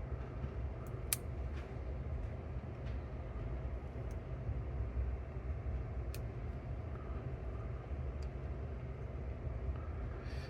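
Steady low background hum with a few faint light clicks, about a second in and again about six seconds in, from small parts and tools being handled on a cassette deck's tape transport mechanism.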